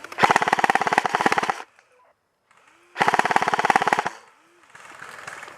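Airsoft gun firing two rapid full-auto bursts, the first about a second and a half long and the second about a second, each a fast, even clatter of shots.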